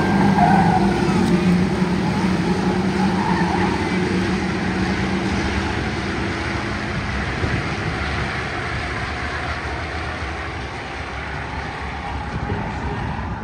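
A pack of Ford Crown Victoria race cars with V8 engines running past at racing speed. The engine sound is loudest early and fades steadily as the cars pull away around the track.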